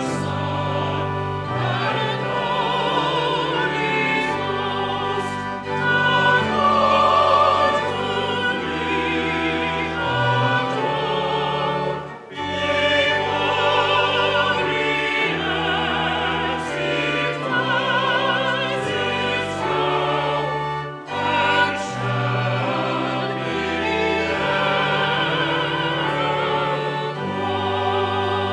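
Voices singing a slow sacred piece with organ accompaniment: held notes with vibrato over long, steady organ bass notes. The music breaks off briefly about twelve seconds in and again near twenty-one seconds, between phrases.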